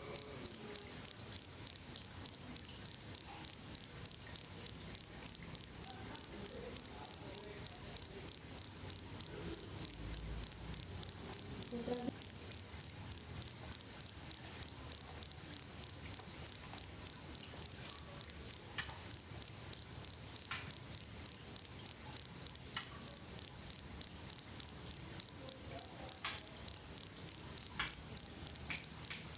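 Cricket chirping steadily: a high, even chirp repeated about three times a second without a break.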